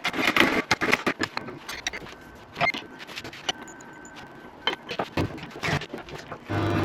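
A string of irregular clicks, knocks and rattles, like tools and small parts being handled on a workbench. Near the end a machine starts with a steady hum, most likely the lathe motor.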